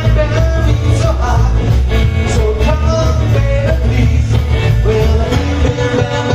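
Live rock 'n' roll band playing loud, with drums keeping a steady beat, bass, guitar and a melodic line over them.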